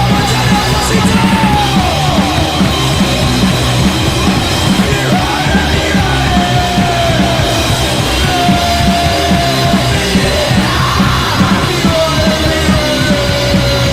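Punk rock band playing a rehearsal demo recording: drum kit and guitars throughout, with a melodic line that slides and holds above the band.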